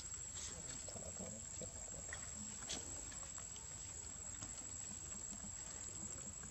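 Faint outdoor ambience: a thin, steady high-pitched insect whine, with soft scattered clicks and rustles from macaques handling and eating fruit, one sharper click a little under three seconds in.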